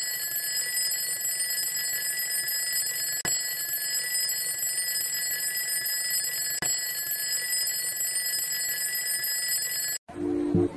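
Twin-bell alarm clock ringing continuously, a steady metallic ring with two very brief breaks, about a third and two thirds of the way through. It cuts off suddenly near the end, and guitar music starts.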